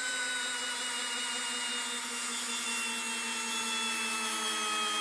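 Makita 12-volt cordless screwdriver driving a long screw into a wooden log. Its motor gives one continuous whine that slowly falls in pitch, with no impact hammering.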